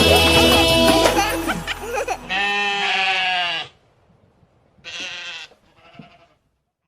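Children's song music ending, then a bleating animal: one long bleat and two short, quieter ones.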